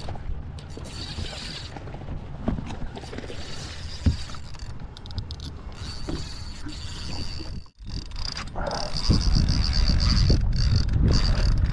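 Fishing reel clicking and rod handling while a hooked tarpon pulls on the line, with wind rumbling on the microphone; both get louder about nine seconds in as the fight picks up.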